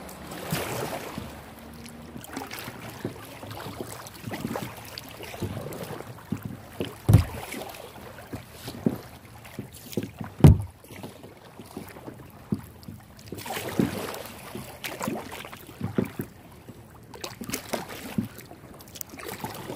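Kayak paddling: paddle blades dipping and splashing in lake water at an uneven stroke rhythm, with two louder low thumps about seven and ten seconds in.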